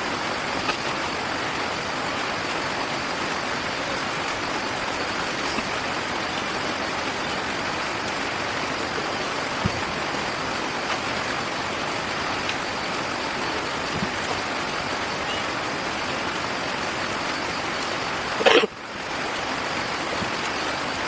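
Steady rushing noise, like rain or running water, with a few faint ticks and one brief louder burst about eighteen seconds in, followed by a short dip.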